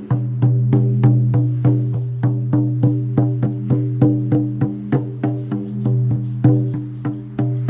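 A newly made hand drum beaten in a steady rhythm of about three strokes a second. Each stroke rings on into the next, so a steady pitched drone sounds beneath the beats.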